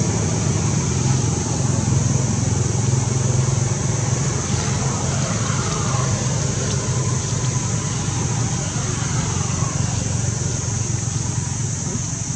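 Steady outdoor background noise: a low rumble like distant road traffic with a constant high hiss over it. Two faint falling tones pass in the middle.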